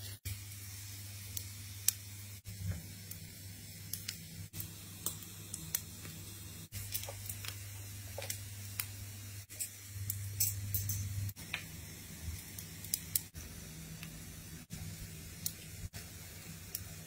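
Beef on skewers sizzling in an electric oven, a steady hiss with scattered small crackles and pops of spattering fat, over the oven's steady low hum.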